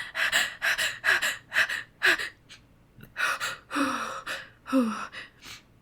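A woman's sharp gasping breaths, several in quick succession, then a short pause and a few longer breaths with a slight catch of voice in them: the hitching build-up of a sneeze she is trying to hold back.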